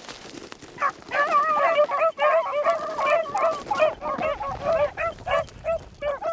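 A small pack of beagles baying on a rabbit's scent trail, their short, overlapping calls starting about a second in and thinning out toward the end.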